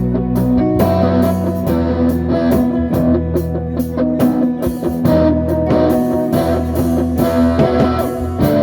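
Gospel band playing an instrumental passage at a sound check: electric guitar over sustained bass notes, with regular percussive hits keeping a beat.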